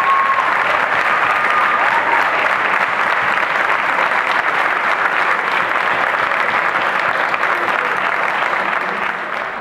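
Audience applauding loudly, the clapping dying away near the end.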